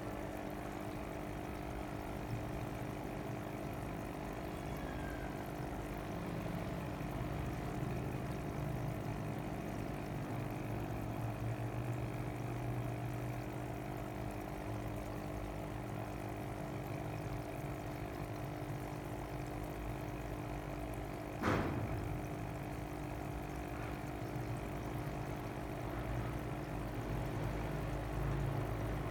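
Water pouring and trickling steadily over the constant hum of fish-tank pumps, with a single sharp knock about two-thirds of the way through.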